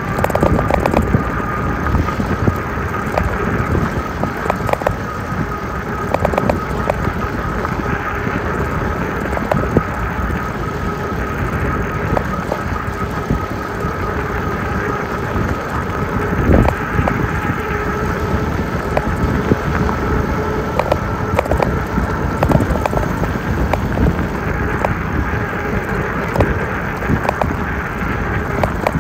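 Jasion e-bike rolling along a gravel road: tyres crunching over the gravel with many small clicks and knocks, under a faint steady whine from the electric motor that rises slowly in pitch.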